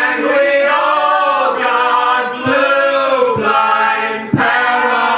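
Several voices of a folk band singing together in harmony without instruments, with a single sharp thump about four seconds in.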